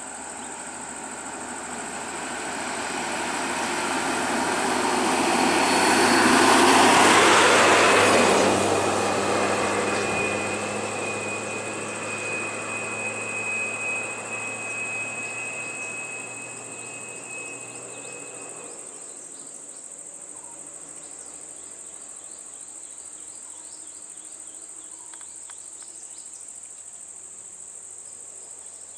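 Ashok Leyland diesel bus driving off close by: its engine noise builds for several seconds, peaks, then fades away about two-thirds of the way through. A steady high insect buzz runs underneath.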